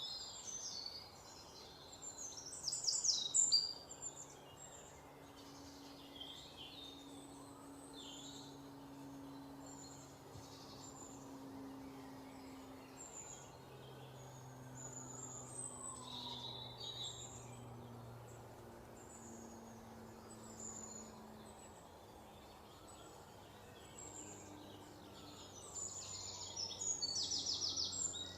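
Forest ambience: several birds calling and chirping. A loud, rapid trill of repeated notes comes about three seconds in and again near the end, over a faint low drone.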